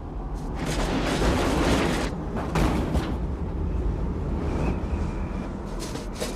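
Designed film sound of a tornado: a steady deep rumble under rushing wind that swells about a second in, with sharp cracks and thuds of debris scattered through it.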